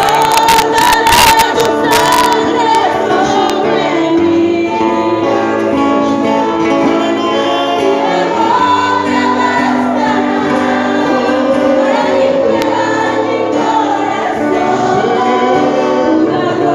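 Church worship song: several voices singing together over instrumental accompaniment, with a few sharp clicks in the first couple of seconds.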